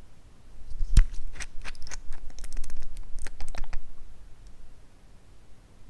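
Glass nail polish bottle being opened by hand: a quick run of sharp clicks and scrapes as the cap is twisted off its threads, the first click the loudest.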